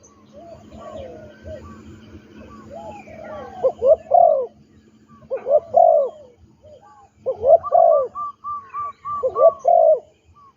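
Spotted doves cooing, phrase after phrase with short gaps, over a steady low hum. A quick run of higher, chirping notes comes in near the end.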